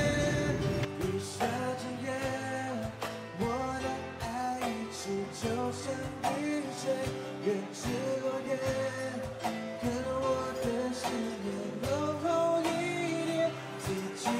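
Background music: a song with singing over guitar.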